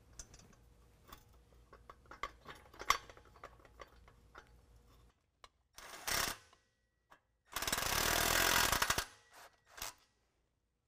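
Cordless electric impact driver running in the resonator coupler bolts: a short run about six seconds in, then a longer hammering run of about a second and a half, and two quick blips near the end. Before it, light clicks and clinks of metal parts and hardware being handled.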